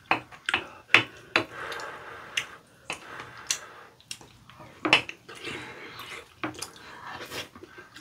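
Spoon and chopsticks clicking and scraping against ceramic bowls of curry rice, in short irregular clinks about once or twice a second, with eating sounds between them.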